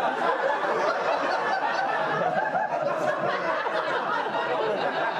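An audience laughing loudly. The laughter breaks out suddenly and holds steady.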